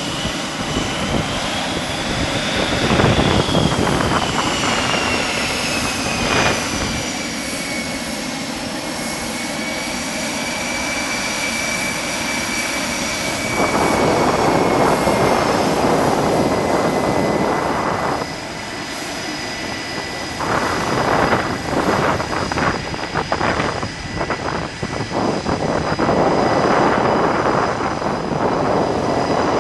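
F/A-18 fighter's twin jet engines running at taxi power: a steady rush with a thin high turbine whine that rises a little, then slides down in pitch over about a dozen seconds and holds level. The rush grows louder about halfway through.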